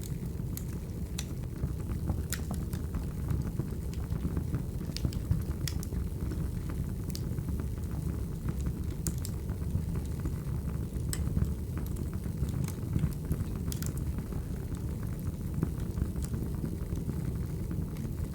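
Wood fire burning: a steady low rumble with irregular sharp crackles and pops from the burning logs.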